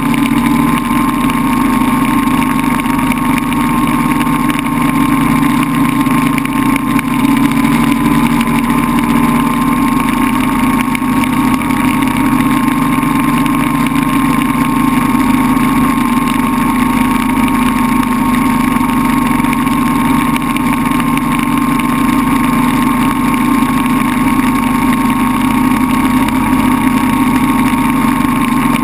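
A multirotor drone's electric motors and propellers, heard from a camera mounted on the drone, running steadily as it flies home and descends under automatic return-to-home. A constant hum with a high whine that drifts a little in pitch.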